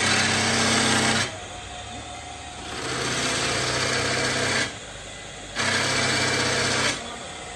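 Power tool in a sword-making workshop running in three loud bursts of about one to two seconds each: a steady motor hum under a hiss, dropping to a quieter hum between bursts.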